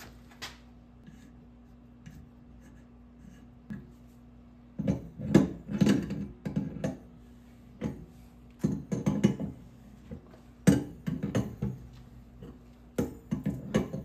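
Metal clinks and rattles of a stainless braided water line being handled and its nut worked onto a brass fitting with a wrench, in four short bursts over a steady low hum.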